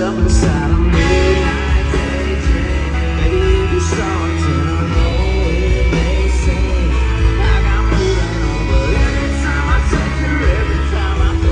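A live band playing a country-rock song with drums, bass and guitars, and a man singing over it, heard from the audience.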